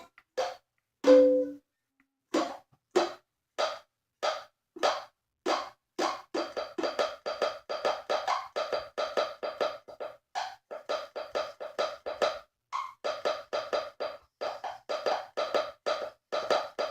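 Guitar played percussively as sound effects: slow, evenly spaced knocks like hammering on wood, then from about six seconds in a fast repeating three-beat clip-clop like galloping hooves.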